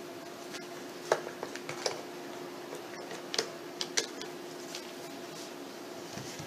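One-handed bar clamps being squeezed tight onto a wooden chair seat frame to hold a glued plywood panel, giving a handful of sharp clicks and knocks between about one and four seconds in, the loudest about a second in. A faint steady hum runs underneath.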